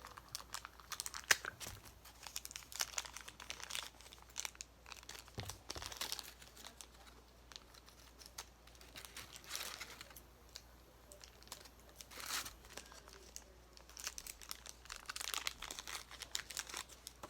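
Toy packaging being handled and torn open by hand: irregular crinkling and tearing.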